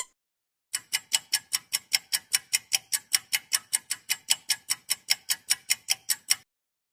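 Clock ticking sound effect: rapid, evenly spaced ticks, about five a second. They start about a second in and stop abruptly near the end.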